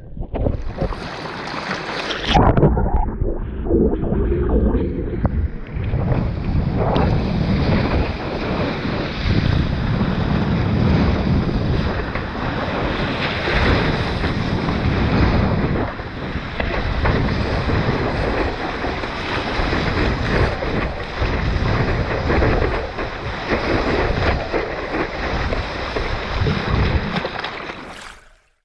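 Wind buffeting the microphone over the rush of ocean water, loud and continuous, cutting off abruptly near the end.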